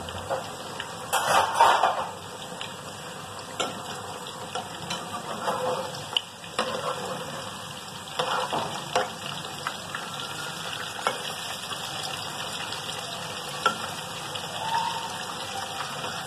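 Batter-coated potato slices (aloo pakoras) deep-frying in hot oil in an iron karahi, a steady sizzle. A metal slotted spoon scrapes and clinks against the pan now and then as the pakoras are turned, loudest about a second in.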